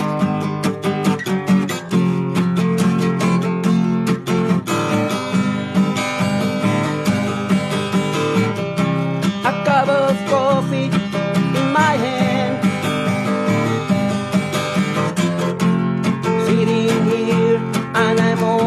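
Acoustic guitar strummed in a steady rhythm: the instrumental intro of an original song, before the vocals enter. A short wavering melody line sounds over the chords about ten seconds in.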